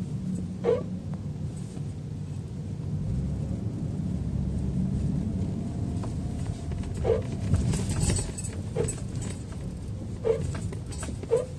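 Short squeaking groans from a 2016 Lexus RX 450h's brakes as the brake pedal is pressed, five in all, over a low steady rumble: an abnormal brake noise that the Lexus dealer has said is nothing wrong.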